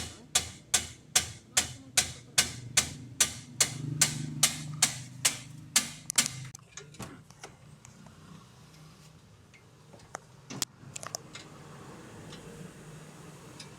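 Hammer striking metal at an even pace, about sixteen sharp, ringing blows some two and a half a second for about six seconds, then a few scattered knocks.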